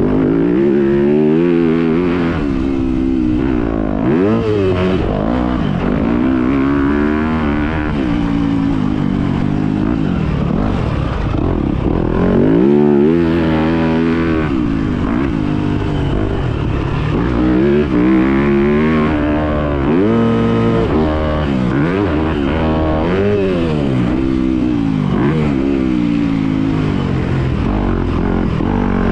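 Motocross bike engine at race pace, revving up and dropping back again and again, its pitch climbing and falling every second or two.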